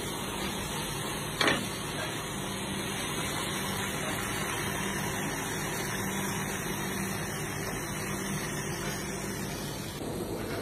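Steady hum and rush of a commercial kitchen extractor hood running, with a single sharp clink of metal cutlery on the cast-iron grill pan about a second and a half in.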